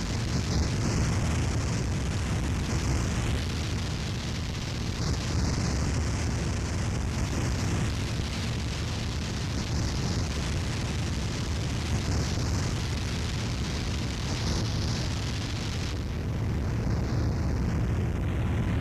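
Harsh noise wall: a dense, unbroken wall of distorted noise at a constant level, heaviest in the low end, with a hissing upper layer that drifts slowly without ever breaking.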